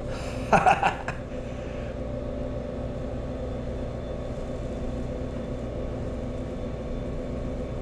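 Steady indoor mechanical hum, a low drone with several held tones; a brief voice sound about half a second in.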